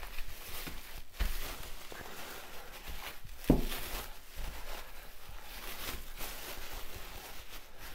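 Plastic wrap crinkling and rustling as a raw pork shoulder is unwrapped by gloved hands. About three and a half seconds in comes a heavy thump, the meat set down on a metal baking tray.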